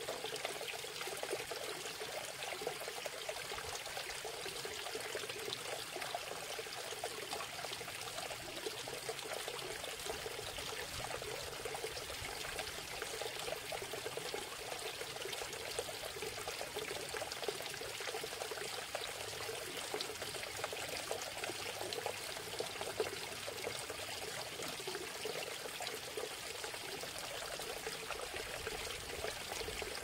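Small cascade of water trickling down over stacked rocks and splashing into a shallow pool, a steady splashing without pauses.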